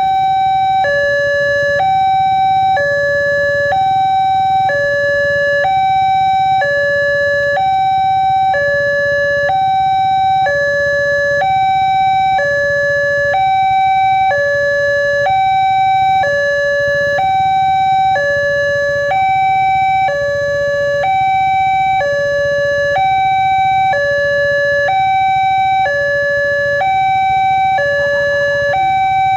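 Railway level-crossing warning siren sounding a loud two-tone alarm, switching between a higher and a lower tone about once a second, with a steady low hum beneath.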